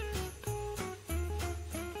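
A jingly Christmas tune with sleigh bells shaken about four times a second over a pulsing bass beat, played from a musical Christmas-village swing carousel's built-in speaker.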